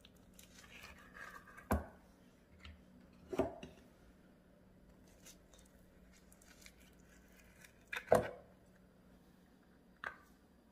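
A metal spoon scooping soft avocado flesh from the skin into a plastic blender jar, with four sharp knocks as the spoon and the avocado hit the jar. The third knock is the loudest.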